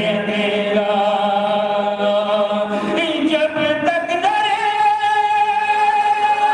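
A man's voice singing an Urdu devotional poem in long held notes, in a chanted melodic style. About four seconds in, it steps up to a higher note and holds it.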